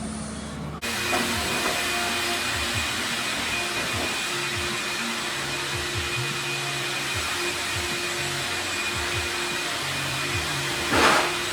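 Craftsman shop-vac motor run as a blower, switching on abruptly about a second in and then running steadily with a rushing of air over a steady whine. It surges louder briefly near the end.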